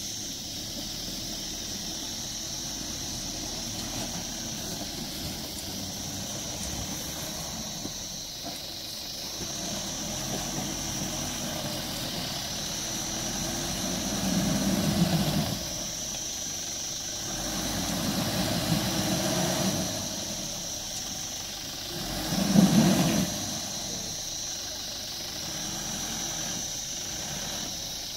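Mahindra Bolero 4×4's engine running at low speed as it crawls through deep mud, revving harder twice, about halfway through and again near three-quarters of the way.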